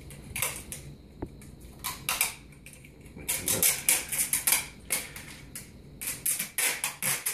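Adhesive tape being pulled off a roll, in several runs of quick crackling clicks with short pauses between.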